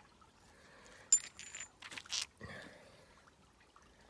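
Stone arrowheads clicking and clinking against each other as they are handled in the palm: a sharp clink with a brief high ring about a second in, then a few softer clicks and rustles.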